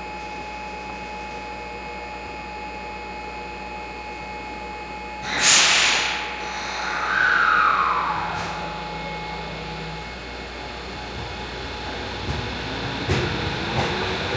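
Electric commuter train at a station platform: a sudden loud hiss about five seconds in fades over a second, followed by a short falling tone. Near the end the train's motor whine starts to rise, with wheel clacks.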